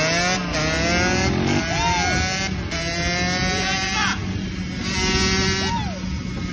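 Dirt bike engine revving as the bike pulls away, its pitch climbing several times and dropping back between climbs, with a couple of quick throttle blips. It grows fainter toward the end as the bike moves off.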